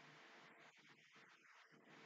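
Near silence: faint steady hiss with a low hum.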